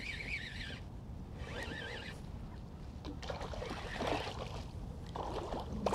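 Water splashing and trickling alongside a kayak as a small red drum (puppy drum) is brought in, with handling noises from about three seconds in. A high wavering tone sounds twice in the first two seconds.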